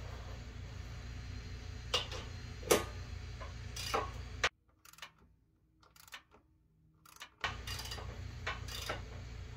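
Hand socket ratchet clicking in scattered bursts as it tightens the running board's mounting bolts into the truck frame, over a steady low rumble. The sound drops out almost completely for about three seconds in the middle, then the clicks resume.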